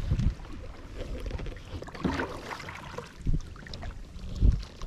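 Kayak paddles dipping and splashing water, with gusts of wind rumbling on the microphone, loudest at the start and about four and a half seconds in.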